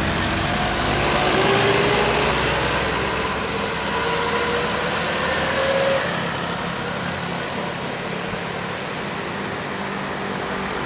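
Road traffic: a large vehicle's engine passing close by, its note rising slowly over a few seconds, then easing into steady traffic noise.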